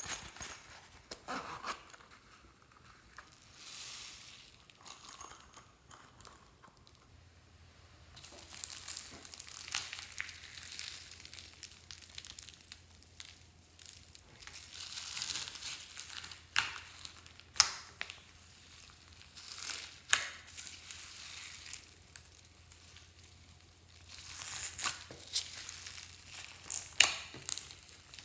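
Glossy slime being pressed and stretched by hand: wet crackling in stretches of a few seconds, with sharp pops of air pockets here and there.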